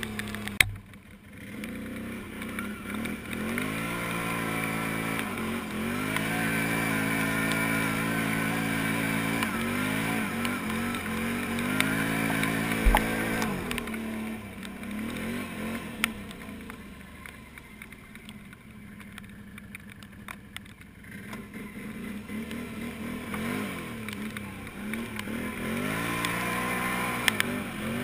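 Can-Am Renegade 500's single-cylinder engine with an aftermarket HMF exhaust, revving up under acceleration and holding steady at speed. About halfway through it eases off and runs quieter for several seconds, then revs up again near the end.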